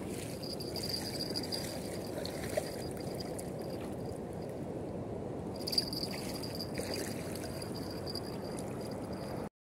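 Steady rush of river water at the bank, with a faint high steady tone that comes and goes and a couple of small clicks.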